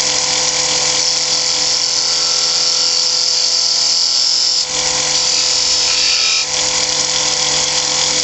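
Wood lathe running with a steady whine while a 3/8-inch beading and parting tool cuts the shoulders of a tenon on a small hard maple spindle, making a steady high hiss. The cut dips briefly twice, about midway and again a couple of seconds later.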